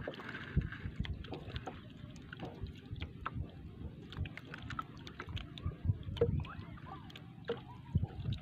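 Water lapping against a small outrigger canoe's hull, with scattered light knocks and ticks as the boat rocks and fishing gear is handled.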